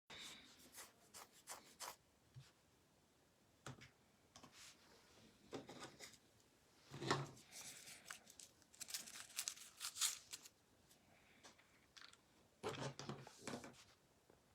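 Faint tearing and crinkling of packaging in short, irregular bursts, loudest about seven seconds in and again near the end.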